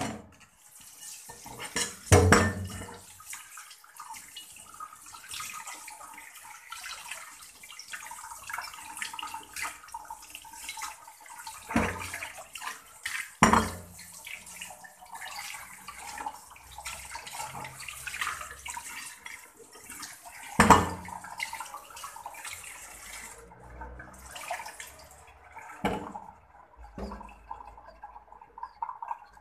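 Kitchen tap running into a stainless steel sink, splashing over a ceramic plate as prawns are rinsed by hand. There are several sharp knocks of the plate against the steel. The water stops near the end, followed by a couple more knocks.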